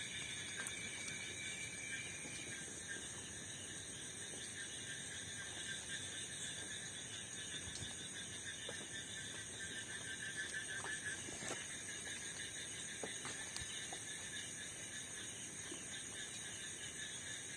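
Steady night chorus of crickets and other insects, several high trilling tones holding without a break, with a few faint clicks scattered through it.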